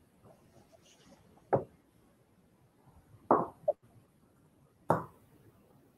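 Three short, clipped sounds, about a second and a half apart, over a nearly dead video-call audio line whose microphone is cutting in and out.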